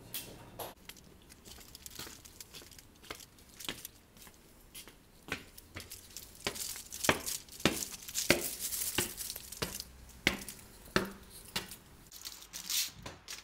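Aluminium foil crinkling and crackling in irregular bursts as a foil-wrapped package is handled and opened, busiest in the second half.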